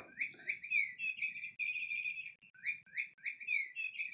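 SmartyKat Chickadee Chirp electronic cat toy playing recorded bird chirps as the cat grips it: a quick run of short chirps, then warbling trills, with a brief pause about two and a half seconds in before the chirping starts again.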